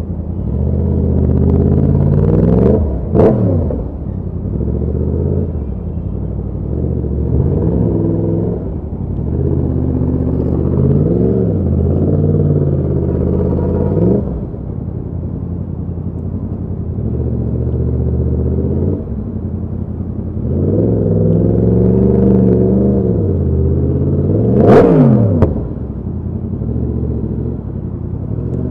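Yamaha FZ-10's crossplane inline-four engine pulling in short bursts of throttle between spells of idling in slow traffic. It gives two quick, sharp revs, about three seconds in and again near the end.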